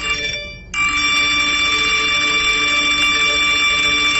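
Electronic bell-like ringing tone, steady and shrill, that breaks off for a moment under a second in and then rings on loudly.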